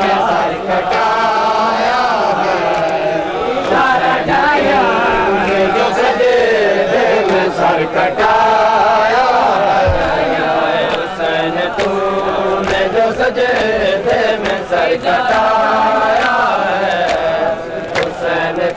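Men's voices chanting an Urdu noha for Hussain: a lead reciter with the crowd of mourners singing along in long, rising and falling phrases. Scattered sharp slaps of matam, hands beating on bare chests, come in from about halfway.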